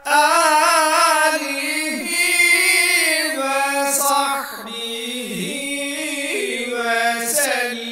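A solo voice chanting a slow religious phrase, holding long notes whose pitch wavers and slides in ornamented runs.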